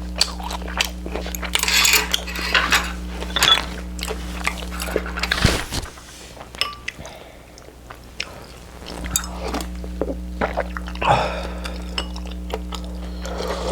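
Eating utensils clicking and clinking against dishes during a meal, a scatter of short sharp clicks.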